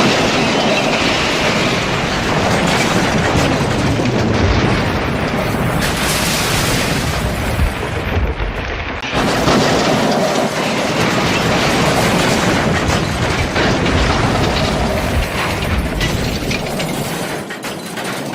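Model train crash sound effect: a long, loud, dense crash of engine and trucks derailing and smashing, with a short break about nine seconds in where a second crash begins.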